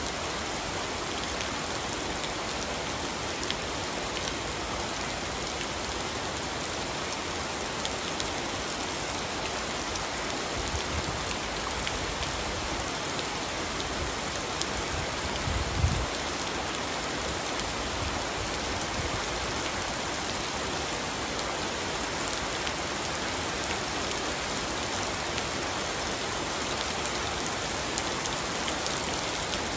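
Steady rain falling on clay roof tiles and into a swimming pool, an even hiss of drops and splashes. About halfway through there is a brief low thump.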